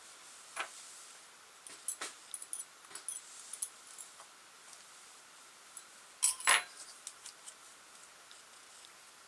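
Scattered small metallic clicks and clinks from hand-working the metal parts and a small tool while refitting an RC crawler's drive shaft, the loudest a pair of clinks about six and a half seconds in.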